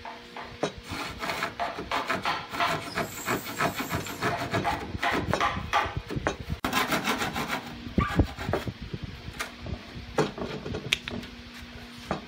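Hand-held wooden frame saw cutting through a curved piece of wood, with repeated back-and-forth strokes of the blade rasping in the kerf.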